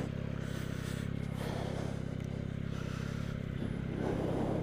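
Yamaha MT-09's three-cylinder engine running at steady revs, heard through a microphone inside the rider's helmet, with two brief swells of noise over it.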